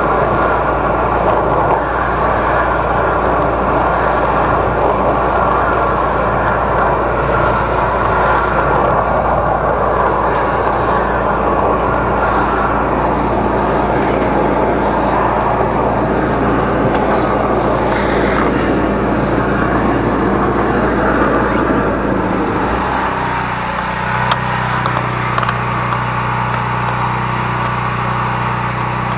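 13-horsepower engine-driven high-pressure sewer jetter running, with a loud, dense rush of high-pressure water under the engine's steady hum. About 23 seconds in the rushing drops away and the engine settles into a steadier, lower hum.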